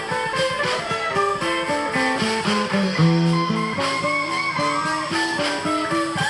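Live blues-rock band playing an instrumental passage: an electric guitar plays a stepping line of notes that drops to a held low note about halfway through, then climbs again, over a steady beat.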